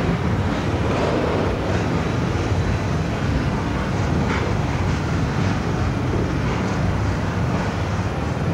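Trains on the move: a Class 116 diesel multiple unit arriving while a Class 303 electric multiple unit pulls out and runs past, a steady rumble of engines and wheels on rail.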